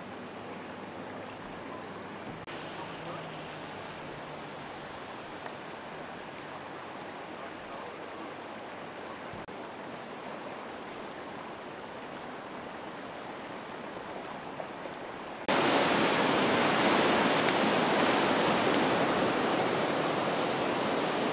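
Fast-moving floodwater rushing, a steady wash of noise. About fifteen seconds in, it jumps suddenly much louder as the sound changes to a swollen river churning below an overpass.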